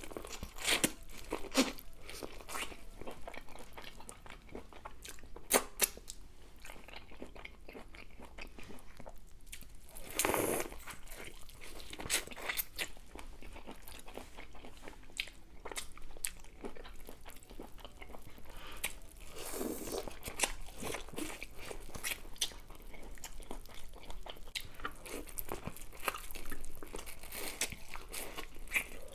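Close-miked eating of a seafood boil: chewing and biting with many short, crisp clicks and crunches, and two longer noisy stretches about a third and two-thirds of the way through.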